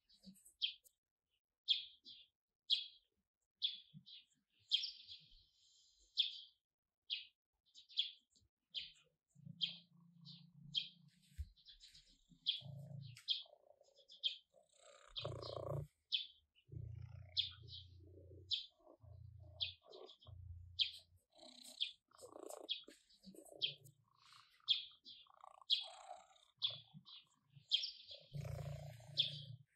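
A songbird repeating a short high chirp about twice a second throughout. From about ten seconds in, an orange tabby cat purring in stretches of about a second at a time as it rolls on its back on wooden decking, with soft rustling of fur against the boards.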